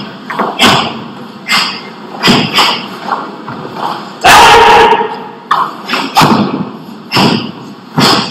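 A karateka performing a kata on a wooden dojo floor: about a dozen short sharp bursts from his strikes, steps and stamps, at an uneven pace. About four seconds in comes a loud kiai shout, held for under a second.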